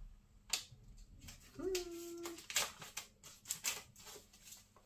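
Packaging being handled and unwrapped: a series of short rustles and crinkles, with a brief hum, just under a second long, around two seconds in.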